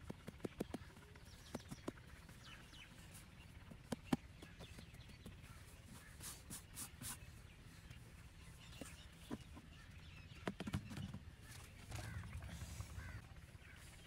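Hands scraping and patting loose, dry soil around a plastic bucket, with scattered sharp taps and small knocks, the loudest about four seconds in. Faint bird calls sound in the background.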